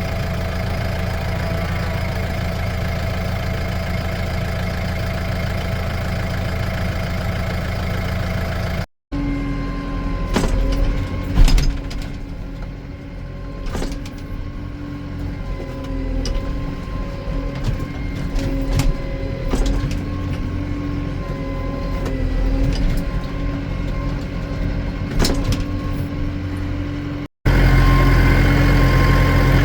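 Farm tractor engine running steadily. After a cut about nine seconds in it runs quieter, with a wavering tone and scattered knocks and clanks, and after a second cut near the end it runs louder and steady again.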